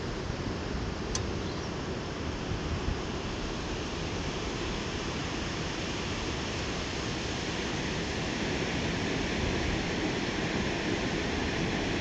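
Steady outdoor rushing noise with no distinct events, growing a little louder in the last few seconds.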